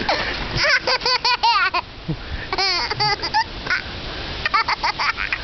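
Toddler laughing hard in three bouts of high-pitched, rapid laughs.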